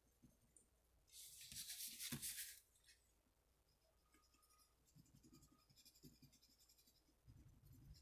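Construction paper crayon scratching on black construction paper in faint strokes. About a second in, a louder papery swish lasting about a second and a half as the sheet is slid round on the table.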